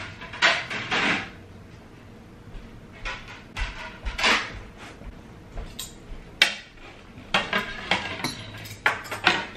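Plates and cutlery clattering and clinking as they are set out on a table, in an uneven run of knocks and rattles.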